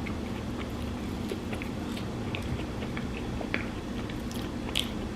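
A person chewing food close to the microphone: soft, scattered mouth clicks and smacks over a steady low background hum.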